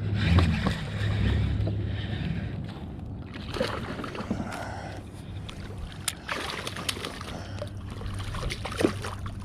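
Water and a steady low rumble while a hooked bass is played and reeled in, with scattered sharp splashes and clicks.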